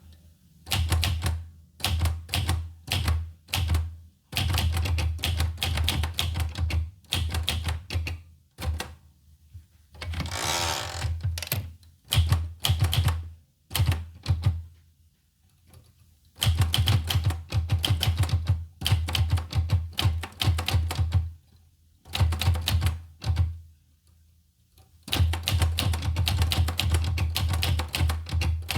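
Olivetti Lettera 25 manual typewriter being typed on: quick runs of key strikes broken by short pauses, with one longer rasping sound about ten seconds in.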